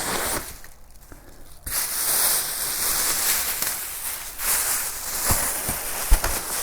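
Packaging rustling and crinkling as an electric unicycle is unpacked from its shipping box, with a pause of about a second near the start and a few light knocks near the end.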